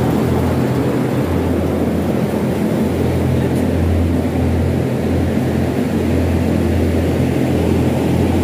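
Greenhouse ventilation fans running with a steady low hum.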